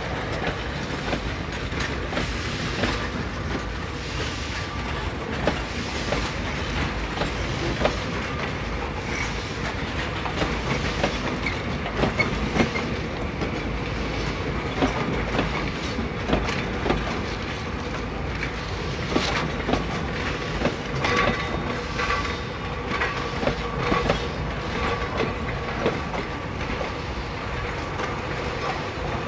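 Railway goods wagons rolling past, their wheels clicking and clanking irregularly over the rail joints, with a faint steady high tone running underneath.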